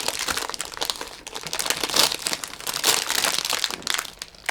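Crinkly plastic packaging being handled and opened, a dense run of quick crackles, with a brief lull a little after a second in.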